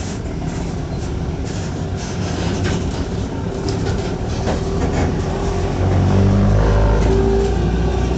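Mercedes-Benz OF-1418 bus's diesel engine and exhaust running under way, a low drone with rattling clicks. It grows louder and heavier about six seconds in, as if under load.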